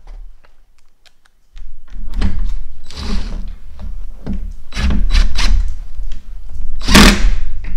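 Cordless drill starting about a second and a half in and running under load against a steel mobile-base bracket, with repeated bursts of grinding and squealing as the bit bites, the loudest near the end.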